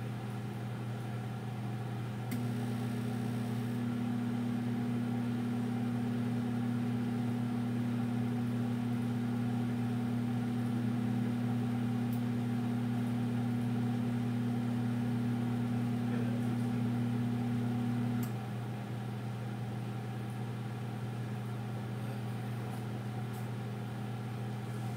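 Over-the-range microwave oven running with a steady hum; a second, louder hum comes in about two seconds in and cuts off about sixteen seconds later, leaving the lower hum running.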